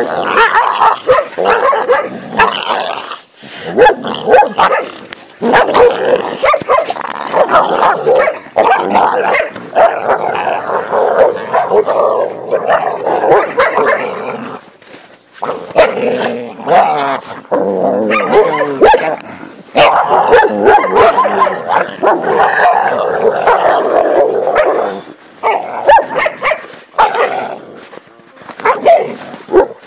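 Central Asian Shepherd Dogs (alabai) fighting, with rough snarling and growling broken by barks and yelps. Dense bouts of noise alternate with brief lulls.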